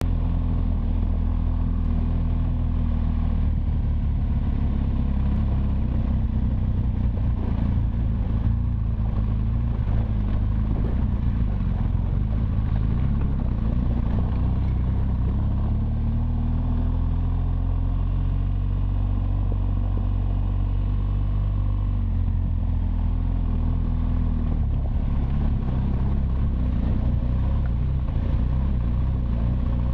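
BMW R1200GS Adventure's boxer-twin engine running steadily while the motorcycle rides a rocky dirt track. The engine note rises a little around the middle and settles back down.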